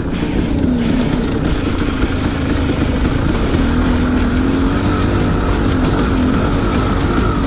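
Dirt bike engine running as the bike rides down a rough dirt trail, its note wavering slightly up and down, under a steady rush of wind and trail noise.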